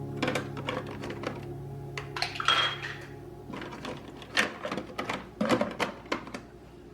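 Dishes and other kitchen items clinking and knocking as they are handled, in a string of short sharp clicks. Acoustic background music fades out about halfway through.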